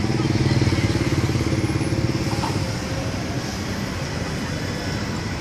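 Road traffic with a motor vehicle engine running close by, loudest in the first two seconds or so and then easing off into steady street noise.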